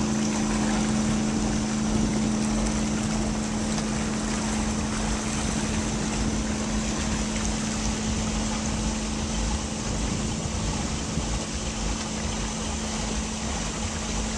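Ski boat's engine idling steadily with a low hum, over wind and water noise, as the boat creeps ahead taking up the slack in the tow rope.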